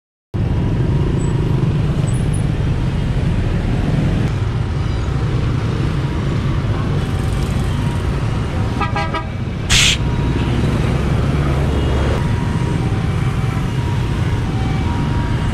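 Dense motorbike and car traffic running steadily on a city street, with a vehicle horn honking briefly about nine seconds in. A short, loud hiss-like burst follows right after the honk.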